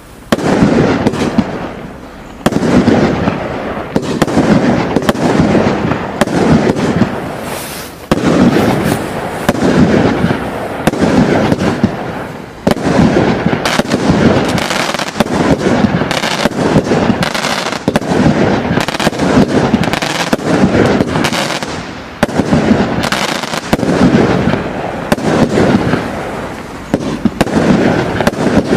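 Consumer firework barrage firing continuously: a rapid run of loud bangs with dense crackling between them, the bursts coming in waves that swell and ease off every few seconds.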